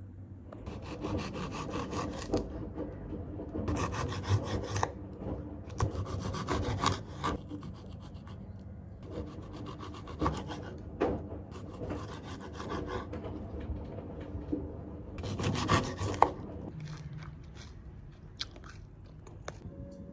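Writing on paper: scratchy strokes in bursts of one to two seconds, with short pauses between them.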